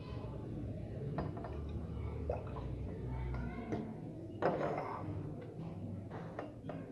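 Glass laboratory containers clinking and knocking against each other as they are handled, a handful of separate clinks with the loudest about four and a half seconds in, over a low steady hum.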